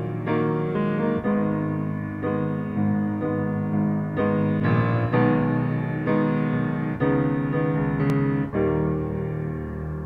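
Solo piano playing slow chords, each struck and left to ring, about one a second.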